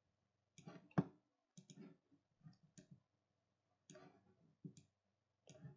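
Faint, irregular clicking of a computer mouse, in small clusters of clicks roughly a second apart.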